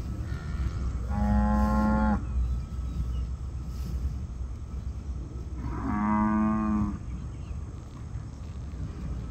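Cattle mooing twice, each moo a steady call of about a second, the second some four seconds after the first.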